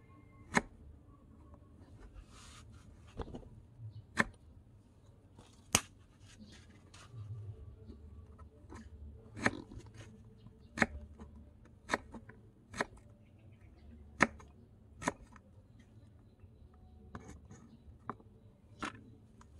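Tiny knife slicing firm orange vegetable into sticks on a miniature wooden cutting board. The blade makes a dozen or so sharp clicks as it cuts through and meets the wood, spaced irregularly about a second apart.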